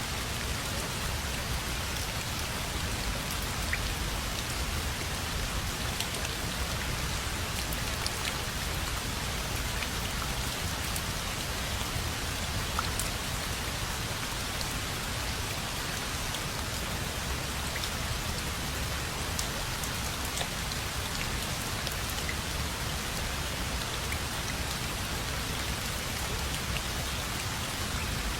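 Steady rain falling on a surface, an even hiss dotted with small drop ticks.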